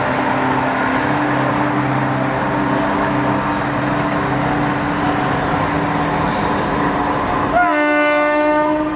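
Diesel locomotive running with a steady engine drone, then about seven and a half seconds in its horn sounds one blast of about a second and a half, dipping slightly in pitch at the start.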